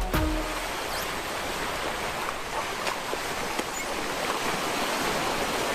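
Shallow surf washing up on a sandy beach: a steady rushing of small breaking waves. It opens with the tail of a short musical sting with a low thump.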